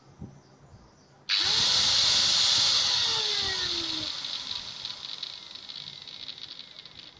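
Angle grinder with no disc fitted, switched on for a test run after reassembly: its motor whirs up suddenly with a hiss from the brushes. It is switched off after about a second and a half and winds down with a falling whine, fading over several seconds.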